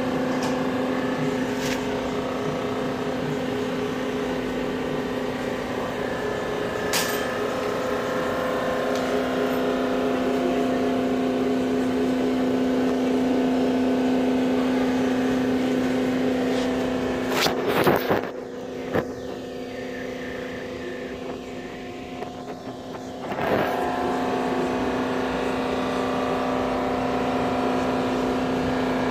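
Steady mechanical hum of a running motor or machine, broken off for a few seconds about two-thirds through by several sharp clicks and knocks before it returns.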